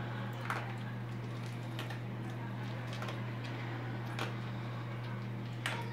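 Dogs eating dry kibble from a bowl: a few scattered crunches and clicks of kibble, the sharpest about half a second in and near the end, over a steady low hum.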